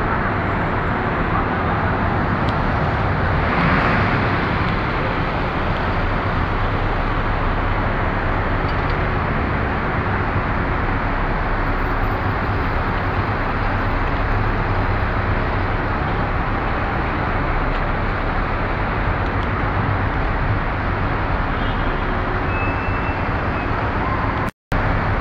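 Steady street traffic noise from cars and city buses running and passing at an intersection, with a louder swell about four seconds in as a vehicle passes close. The sound cuts out for a split second near the end.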